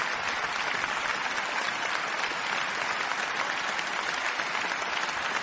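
Large audience applauding, with steady, dense clapping.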